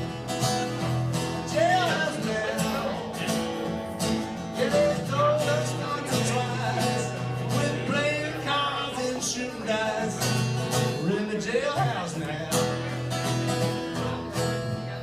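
A man singing a country song to his own strummed acoustic guitar, heard through a small PA.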